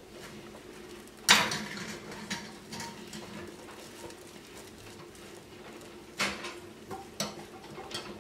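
Round metal cake tin knocking against a wire cooling rack as a cake is turned out of it. One loud clank comes about a second in, followed by several lighter knocks and taps.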